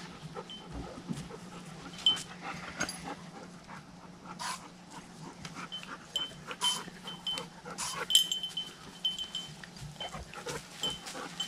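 A dog panting close by, with scattered light clicks and rustles of small gear being handled on a pickup's tailgate and a short high peep that repeats now and then.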